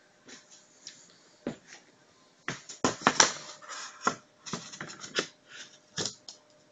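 Handling noise: an irregular run of knocks and clatters as a printed picture panel and the camera are moved about, thickest and loudest about three seconds in, over a faint steady hum.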